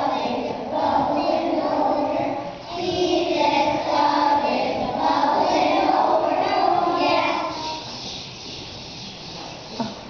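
A group of preschool children singing together, in phrases with short breaks between them. The singing fades away near the end.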